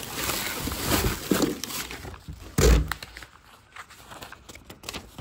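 Plastic bags and packing wrap rustling and crinkling in a cardboard box as it is rummaged through, with one dull thump about two and a half seconds in and lighter knocks after it.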